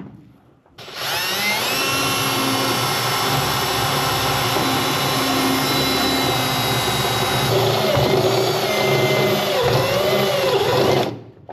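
Electric drill running a step bit through the Jeep's steel body, cutting a bolt hole for a seatbelt mount. It starts about a second in, runs steadily, wavers in pitch in the last few seconds as the bit works through the metal, and stops just before the end.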